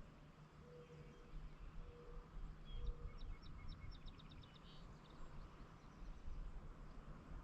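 Faint birdsong over a low outdoor rumble: three short, low hooting notes in the first three seconds, then a quick trill of high notes, about six a second, between three and five seconds in.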